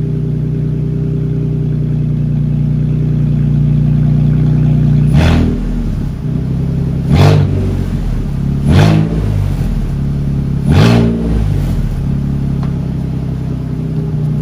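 2017 Ford Police Interceptor Utility's V6 engine running loud with its exhaust disconnected ahead of the mufflers, essentially straight-piped. It idles steadily, then about five seconds in it is blipped four times in quick revs about two seconds apart, dropping back to idle after each.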